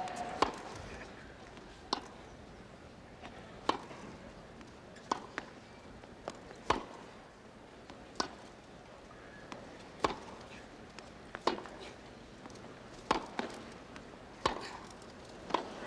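Tennis ball struck back and forth in a long rally: a sharp pock about every one and a half seconds, eleven times, over a faint steady crowd hum.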